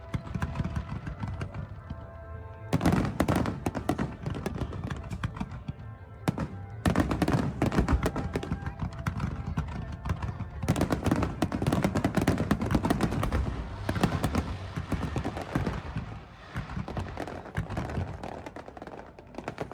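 Fireworks starmine barrage: shells bursting in rapid, dense succession over music from loudspeakers. Only music plays for the first few seconds, then the bursts start and continue with a brief lull partway through.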